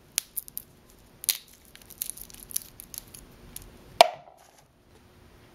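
Roasted cocoa beans being shelled by hand: scattered small cracks and clicks as the brittle shells pop off. There is one louder, sharp knock about four seconds in.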